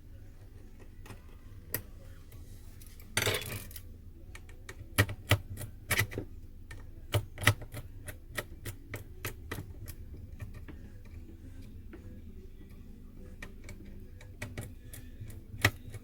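Irregular sharp clicks and taps of small repair tools and plastic and metal parts being handled on an opened Samsung Galaxy J2 Prime, with a brief rasp about three seconds in.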